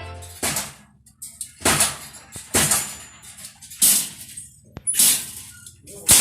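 Spot welder firing a series of short, sharp zaps, about one a second, six in all, as it welds wire joints.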